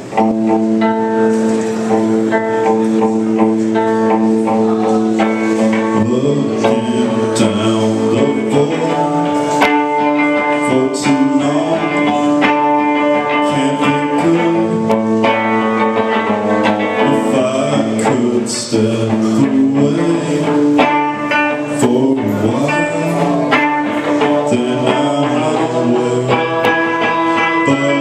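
Live rock band playing a song loudly: guitars over a drum kit with cymbals, coming in all at once.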